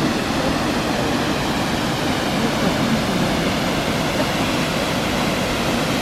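Multnomah Falls, a large two-tiered waterfall, rushing as a steady, even roar of falling water.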